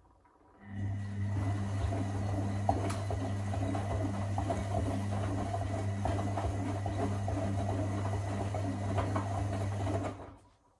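Electra Electronic 1100 front-loading washing machine on its wash tumble: about a second in, the drum motor starts with a steady hum while the wet towels slosh and tumble in the water, then after about nine seconds the motor stops and the drum falls quiet.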